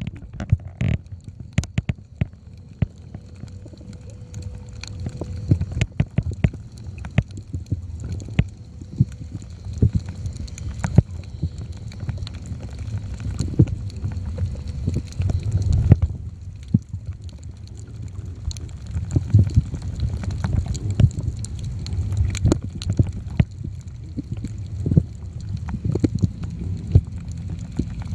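Underwater sound picked up by a camera: a low, muffled water rumble that swells and fades, with many sharp clicks and crackles scattered throughout.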